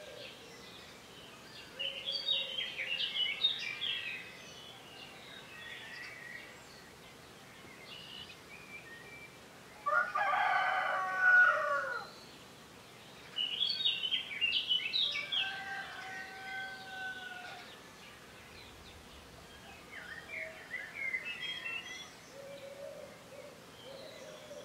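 Songbirds singing in short chirping bursts at dawn. A rooster crows loudly once about ten seconds in, a call of about two seconds that falls in pitch at the end.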